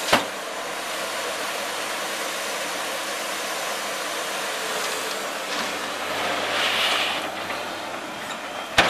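New Holland LS170 skid steer loader's diesel engine running steadily as the machine works on gravel, with a sharp click just after the start and another near the end.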